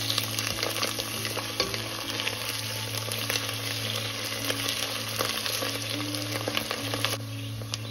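Sliced onions and freshly added crushed ginger-garlic paste sizzling and crackling in hot oil in a pot, stirred with a silicone spatula. The sizzle eases a little near the end.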